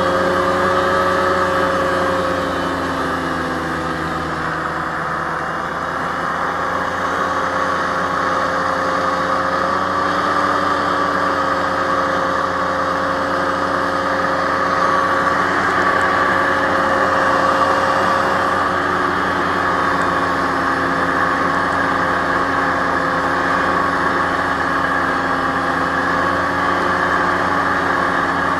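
Aerocruiser SA-1100 hovercraft running underway with a steady engine drone. Its pitch eases slightly a few seconds in and then holds.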